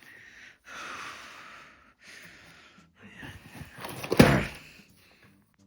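Spells of hissy, rustling noise, then one sharp thump about four seconds in.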